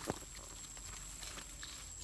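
Rustling and light tapping of a nylon mesh fish trap being handled by hand, with one sharp knock right at the start.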